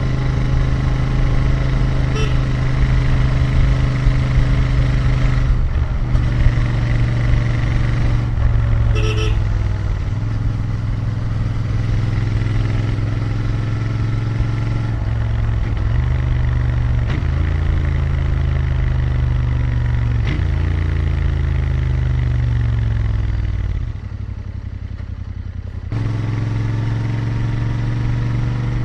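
Royal Enfield Interceptor 650's 648 cc parallel-twin engine and exhaust heard from the rider's seat under way, the revs climbing and dropping back through several gear changes. Near the end the engine note falls away and goes quieter for about two seconds, then picks up again.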